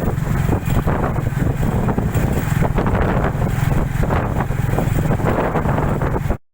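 Wind buffeting the microphone in a dense, steady low rumble, cut off abruptly near the end.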